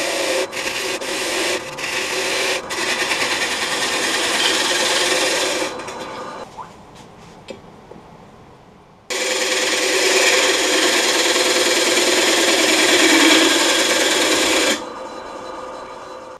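Sandpaper held against a black walnut bowl spinning on a wood lathe: a steady rasping hiss with a few light clicks. After about six seconds it stops for a few seconds, then a similar loud rasping starts abruptly and runs until near the end.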